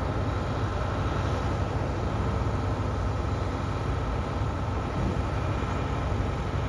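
A motor running steadily at constant speed, with a low rumble and a faint steady hum above it.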